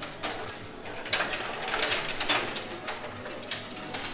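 Coin pusher machine in play: mechanical clatter from the pusher with metal coins clicking and clinking against each other, several sharp clinks standing out.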